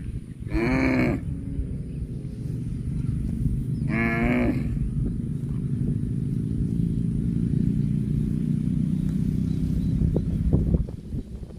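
Cattle mooing: two short calls about three and a half seconds apart, each falling in pitch, over a steady low rumble that stops shortly before the end.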